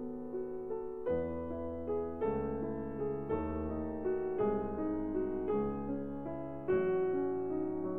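Slow piano music, a new chord struck about once a second and left to ring.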